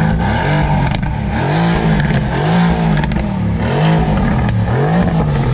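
BMW E92 M3's S65 4.0-litre V8 with a muffler delete, heard from inside the cabin, its revs rising and falling about once a second.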